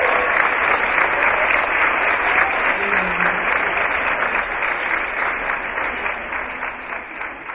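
Theatre audience applauding after a song, a dense steady clapping that fades away near the end.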